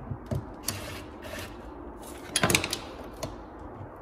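Scattered metal clicks, with a short cluster of rattling clicks about two and a half seconds in, from a screwdriver working the mounting screws of a 50-amp range receptacle's metal strap as it is levelled in its box.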